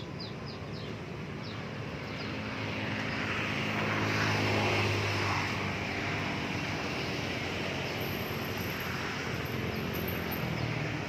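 An engine-driven vehicle passing by, growing louder to a peak about four to five seconds in, then fading slowly.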